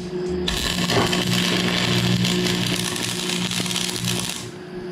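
Stick welding on steel: the electrode arc strikes about half a second in, then crackles and sizzles steadily until it breaks off near the end, with a steady low hum beneath.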